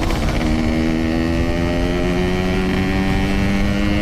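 Yamaha RX-King two-stroke single-cylinder motorcycle engine under way, its note climbing steadily as it accelerates, with wind rumble on the helmet-mounted microphone.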